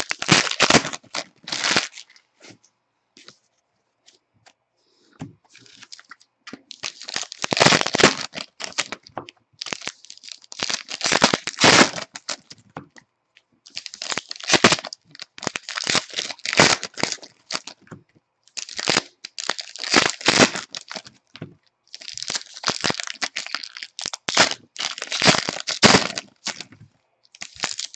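Plastic wrappers of 2016 Contenders Draft football card packs being torn open and crinkled, in a run of crackly bursts with a quieter stretch a few seconds in.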